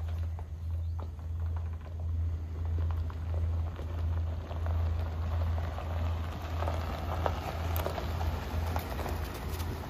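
Ford F-150 3.5 L V6 idling with a steady low hum, with a light scattered patter over it.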